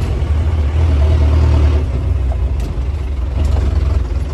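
Modified Mahindra jeep's engine and loud aftermarket exhaust running on the move, a steady deep rumble that swells briefly about a second in.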